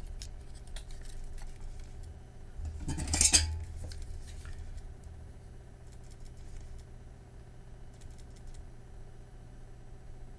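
Yihua 948 desoldering station's vacuum pump briefly triggered, a short buzzing suction hiss about three seconds in, with a few small clicks around it over a steady low hum.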